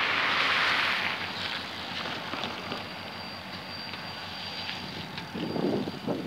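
Wind buffeting the microphone, a strong gust of hiss in the first second and a short low buffet about five and a half seconds in, over the faint steady sound of a distant diesel locomotive approaching.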